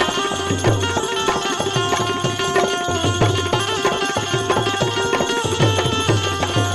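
Instrumental interlude of a Gujarati bhajan: hand drums playing an even rhythm under steady held notes from a melodic instrument, with no singing.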